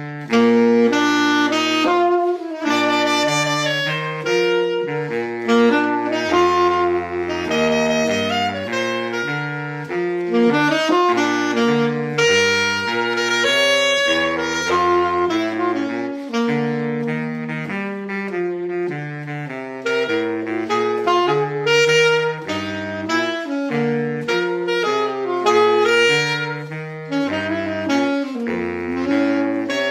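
A saxophone ensemble, one of them a baritone saxophone, playing a slow piece in harmony, with several held notes sounding together and changing about once a second.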